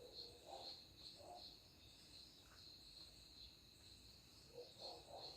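Near silence, with a faint, steady, pulsing high trill of crickets and a few soft low sounds.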